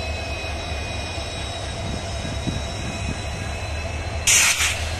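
Electric freight locomotive hauling a goods train slowly past: a steady low hum with faint steady high whining tones. Near the end a sudden loud hissing burst lasts about half a second.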